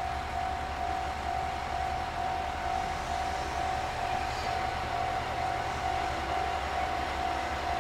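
Diesel railcars running at a station: a steady low engine throb with an even pulse, and a steady high whine held over it.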